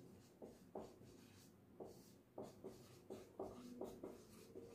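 Marker pen writing on a whiteboard: faint, short, irregular strokes, with one longer drawn-out stroke a little past the middle.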